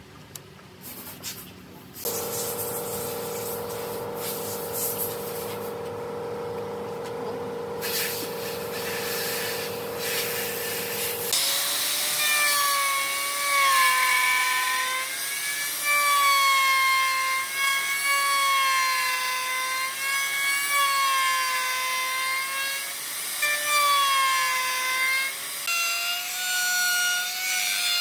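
Handheld plunge router switching on about two seconds in and running steadily, then cutting into wood from about eleven seconds on. Its whine gets louder and wavers up and down in pitch as the bit takes the load.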